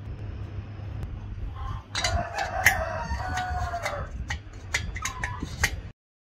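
A rooster crowing: one long call, slowly falling in pitch, about two seconds in, and a shorter call a little later, over a steady low hum and a run of sharp clicks or taps. The sound cuts off abruptly near the end.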